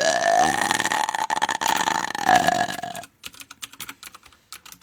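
One long, loud burp lasting about three seconds, rough and rattly with a held pitch that rises at the start. A few light clicks follow near the end.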